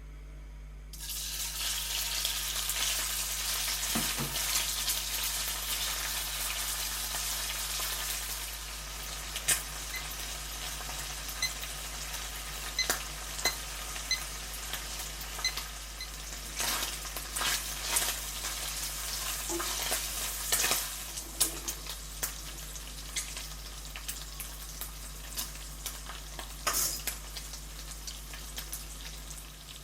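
Food sizzling in oil in a frying pan, starting suddenly about a second in and easing somewhat after several seconds, with repeated sharp clicks and taps of a utensil stirring against the pan.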